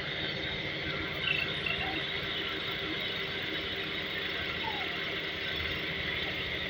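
Toyota Altezza's 3S-GE inline-four engine idling steadily while still misfiring.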